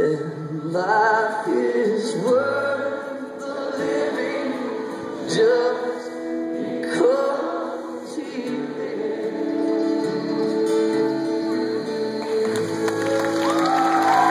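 Live acoustic band playing a bluegrass-style worship song, with voices singing over acoustic guitars.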